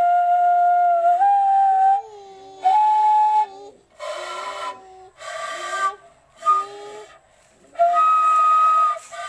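Side-blown bamboo flute played solo: long held notes that step up in pitch, with a stretch of shorter, breathier notes separated by short pauses in the middle.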